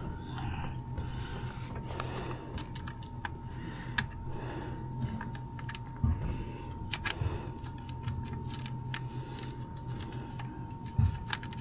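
Scattered small metal clicks and taps of hand work on a camshaft position sensor and its short retaining bolt, a second or so apart, over a steady hum.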